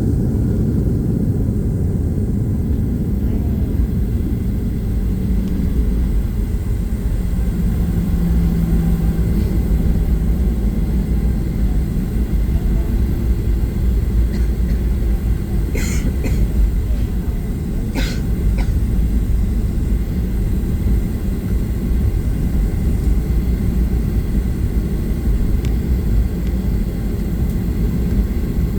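Steady low rumble of cabin noise inside a Boeing 737-800 on the ground after landing, engines and wheels running. Two short sharp sounds stand out about halfway through, a couple of seconds apart.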